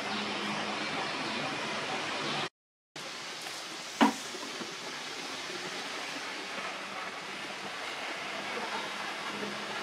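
Steady outdoor background hiss with a faint low hum, cut to dead silence for a moment a little over two seconds in, then one sharp click about four seconds in.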